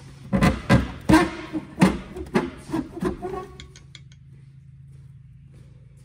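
A 2000 Chevy Camaro's AC evaporator box knocking and scraping against the dash and surrounding parts as it is worked loose and pulled out. A quick run of knocks and rubs lasts about three seconds, then stops, leaving a faint steady hum.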